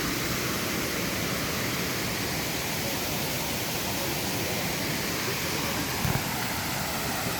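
Steady rushing of water pouring over the Kuang Si waterfall cascades, with a brief low thump about six seconds in.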